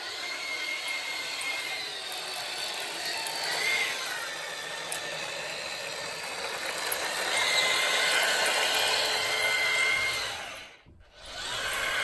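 Twin electric drive motors and gearboxes of a 1/16-scale RC Tiger 1 tank chassis whining as it drives, the pitch rising and falling with the throttle. The whine cuts out briefly near the end, then starts again.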